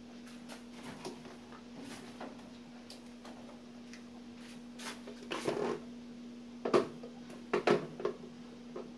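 Plastic blender jar being handled and set onto its base: faint clicks, a burst of handling noise about five and a half seconds in, then two sharp knocks near the end, over a steady low hum.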